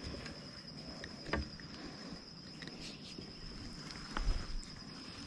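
Insects trilling with a steady high-pitched tone, with a couple of soft clicks from handling a small bass and its hook.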